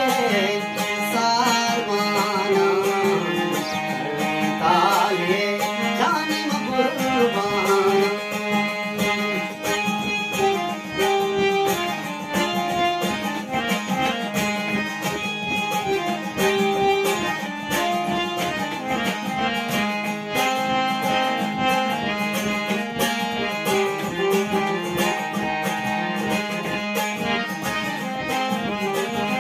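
Instrumental Balochi music: a harmonium plays a melody over a held drone note while a long-necked lute is plucked in a steady rhythm. A man sings a wordless, wavering phrase during the first several seconds.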